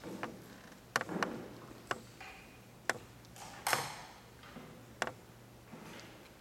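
Scattered sharp clicks and knocks, a few per second at first and then sparser, with a brief rustle a little past halfway: a bass player handling his instrument cable and plugging into a small amplifier. A faint steady low hum sits underneath.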